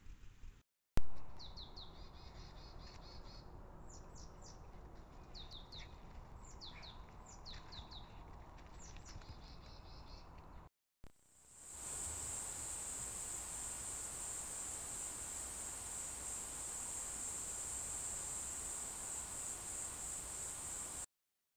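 Trail-camera field audio: a sharp click about a second in, then small birds calling in short series of quick high chirps. About eleven seconds in, this gives way to a steady, high-pitched, slightly pulsing insect chorus.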